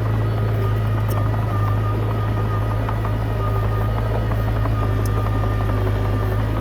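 Komatsu D20P bulldozer's diesel engine running steadily with a deep, constant drone, with faint clicks and squeaks of the machine working over it.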